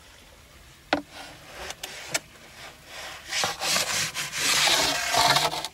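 A wooden peel scraping and sliding across the floor of a wood-fired brick oven, a rough rubbing scrape that builds over the last couple of seconds, after a sharp knock about a second in.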